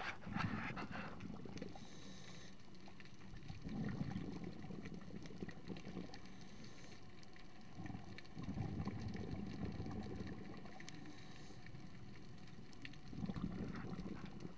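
Scuba diver breathing through a regulator underwater: a soft hiss on each inhale and a low bubbling rush of exhaled air, four breaths about every four to five seconds.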